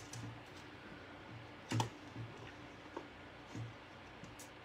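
A few scattered light taps and knocks as small craft supplies are handled and moved about, with one sharper knock a little under two seconds in.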